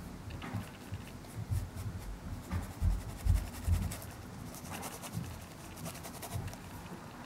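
Paintbrush scratching and dabbing against coarse fabric in short irregular strokes, with a few dull low thumps a little past the middle.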